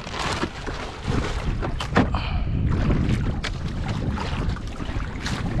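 Wind buffeting the microphone in a low rumble, with a plastic bag crinkling in hand in short bursts near the start, about two seconds in, and near the end.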